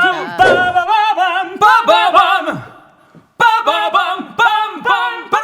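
Unaccompanied singing with vibrato, as a short a cappella jingle, in two phrases with a brief break about three seconds in.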